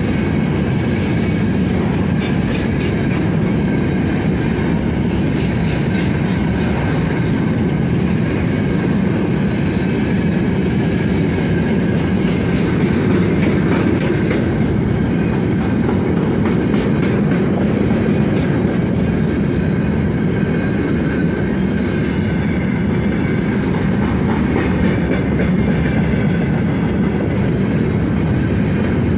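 Freight train of open gondola wagons rolling past close by: a steady rumble of wheels on rail, with clicking of wheels over the rail joints in the first few seconds and a faint steady high ringing from the wheels.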